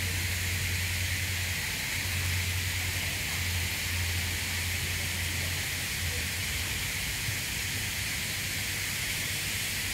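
Steady outdoor background noise: an even hiss with a low steady hum underneath and faint distant voices. No bird calls.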